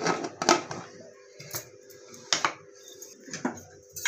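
Aluminium pressure cooker lid being closed and locked, with about half a dozen sharp metal clicks and knocks as the lid and handles come together.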